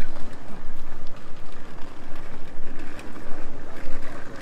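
Wind rumbling on a handheld microphone over city street noise, a steady rumbling hiss.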